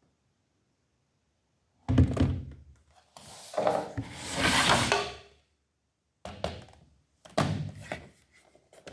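Laptop being handled and set down on a hard surface: a sharp thunk about two seconds in, a rustling, scraping stretch of a couple of seconds, then two more knocks.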